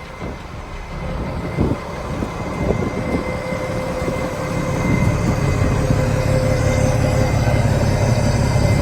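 Cummins diesel engine of a 1990 Ford concrete mixer truck running with a steady low rumble, growing louder about halfway through.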